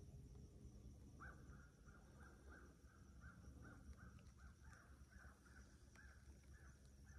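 A bird calling faintly: a series of short, evenly spaced notes, about two to three a second, starting about a second in.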